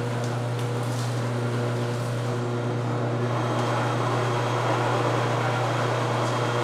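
Electric sugarcane juicer running with a steady low motor hum as it crushes a stalk of sugarcane between its rollers.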